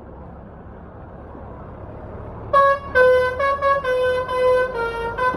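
Basuri telolet bus horn playing a tune of short notes that step up and down in pitch, coming in loudly about halfway through. Before it, a low rumble grows steadily louder.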